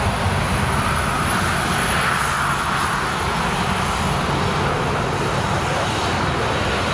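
Boeing 737-300's twin CFM56-3 turbofan engines running at taxi power: a steady jet roar and hiss, swelling a little a couple of seconds in as the airliner turns away.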